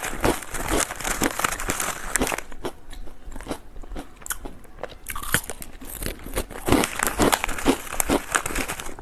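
Cucumber-flavoured potato chips crunched and chewed close to the microphone: a dense run of crisp crunches that thins out a few seconds in, then picks up again.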